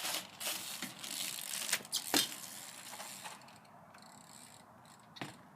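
BMX bike being ridden over a small jump: a run of mechanical ticking and rattling with a sharp knock a little after two seconds in, then it goes quiet. The rider afterwards says the noise comes when the handlebars move and that it doesn't sound good.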